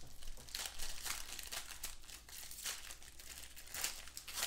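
Gold metallic-foil trading-card pack wrapper being torn open and crinkled by hand: a run of irregular crackles, with some of the loudest near the end.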